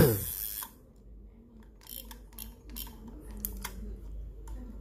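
Daiwa SS 4000 spinning reel being handled, giving a string of small, irregular clicks and ticks that start a couple of seconds in.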